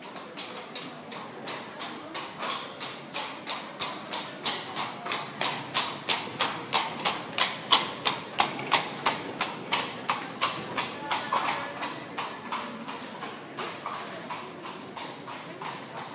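Horse's shod hooves clip-clopping in a steady, even rhythm of about three beats a second, growing louder toward the middle and fading away again as the horse passes.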